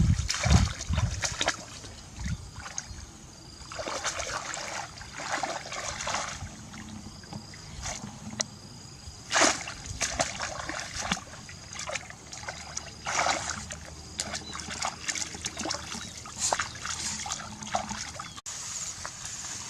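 Water splashing and sloshing in irregular bursts, with sharp clicks scattered through.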